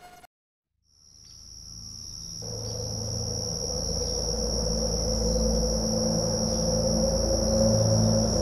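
Ambient soundtrack fading in after a moment of silence: a steady, high, cricket-like tone over a low drone that slowly swells louder.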